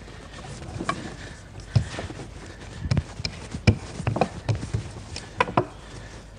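Wooden rolling pin rolling out flatbread dough on a stone tabletop, giving a string of irregular knocks and thuds, about one or two a second.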